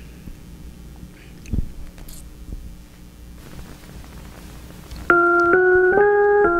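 Quiet room tone with a faint hum and a single soft bump, then about five seconds in a keyboard with an organ-like sound starts loudly, playing the introduction of a song in held notes that step up and down in pitch.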